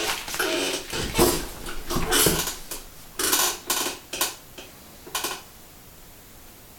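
A broken hacksaw blade scraping flutes into a porcelain bowl: several short scraping strokes, one after another, that stop about five seconds in.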